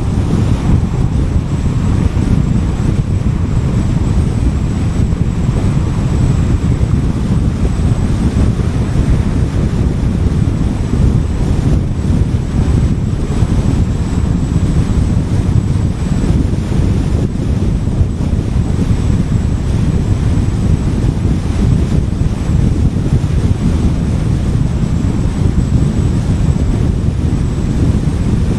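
Car driving at steady speed: a continuous low rumble of wind buffeting and road noise, with no changes or distinct events.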